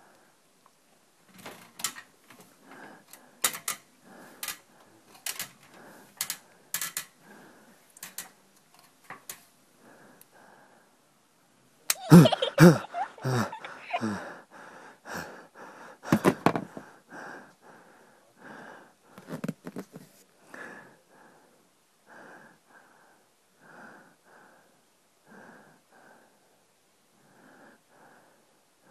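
A person breathing hard and nervously, short puffs in and out repeating through the whole stretch. Sharp clicks come in the first several seconds, and a louder outburst with a voiced, bending pitch comes about twelve seconds in.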